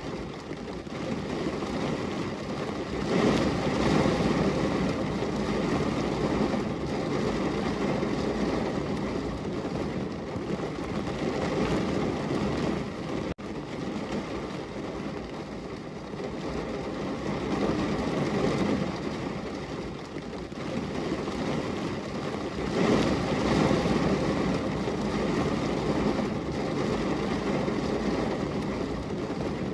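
Heavy rain pouring down on a window, a steady dense patter that swells and eases every several seconds, with a momentary drop about halfway through.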